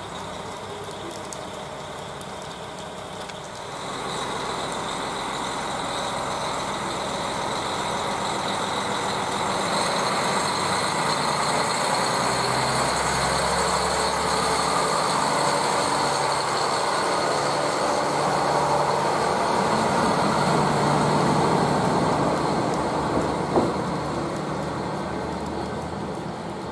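KiHa 40 diesel railcars pulling away from a station, their diesel engine running louder as they accelerate past, with a single sharp knock near the end.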